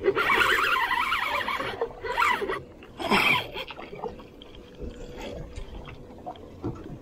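Spinning reel's drag buzzing as a hooked big fish pulls line off. A loud stretch comes first, then shorter bursts at about two and three seconds before it eases off.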